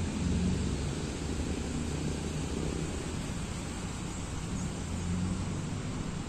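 Steady low outdoor rumble with a faint hiss over it, with no distinct events.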